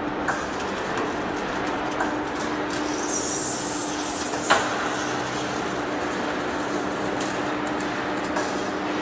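Large heavy-duty lathe running as it turns a massive steel shaft: a steady machine hum with a constant low drone, broken by a few sharp knocks, the loudest about halfway through.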